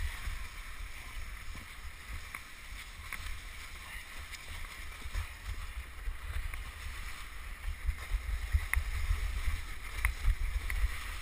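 Wooden krňačka sled moving over snow: a steady low rumble of wind and runner noise on the camera microphone, with scattered sharp knocks and crunches of the runners on the snow. The knocks come more often and louder in the last few seconds.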